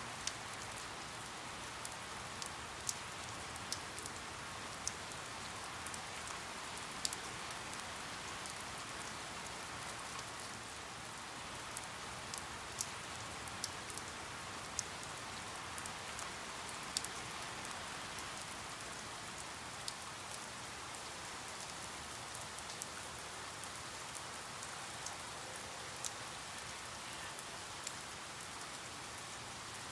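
Steady rain falling, an even hiss with scattered sharp drips of individual drops landing close by.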